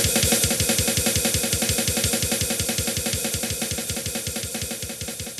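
Black metal drum kit playing fast, even bass-drum strokes, about seven a second, under a constant cymbal wash, fading out gradually.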